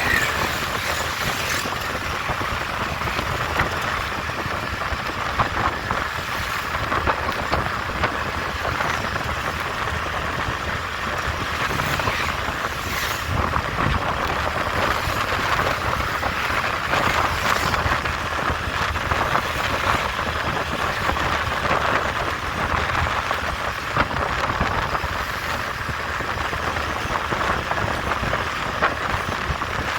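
Steady road and wind noise from riding a scooter through traffic, with small scattered peaks from passing vehicles.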